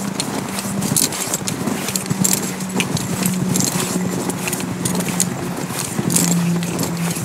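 Footsteps crunching in packed snow at a walking pace, about one or two crisp crunches a second, over a steady low hum.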